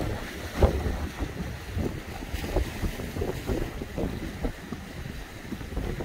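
Small waves washing and splashing against shoreline rocks in irregular surges, with wind buffeting the microphone in a low rumble.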